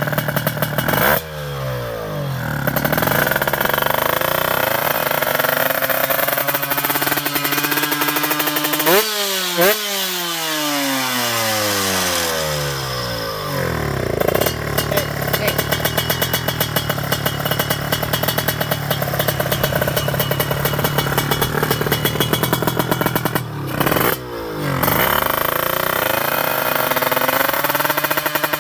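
Two-stroke Kawasaki Ninja single-cylinder engine in a 155 cc drag-racing build, running hard at high revs while it is being tuned. The revs fall away about a second in, snap up and drop around nine seconds in, and dip and pick up again near the end.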